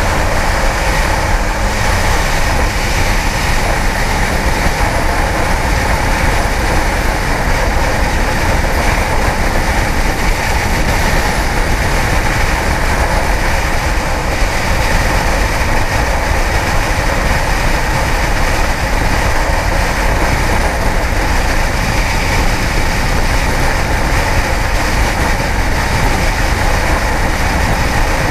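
Kawasaki ZX-10R inline-four motorcycle riding at a steady speed: engine running under the rush of wind on the helmet microphone, loud and even throughout.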